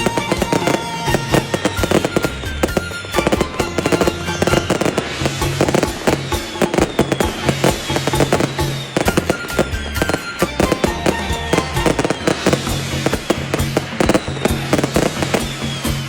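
A string of firecrackers crackling in a rapid, continuous barrage, with music playing underneath.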